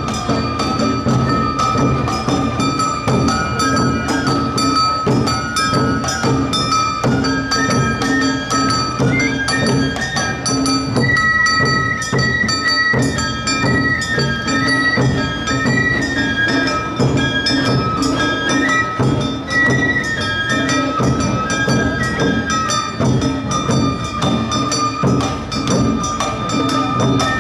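Awa Odori festival music played live by a dance troupe's band: bamboo flutes carry a high, held melody over a steady, driving beat of taiko drums and the clanging kane hand gong.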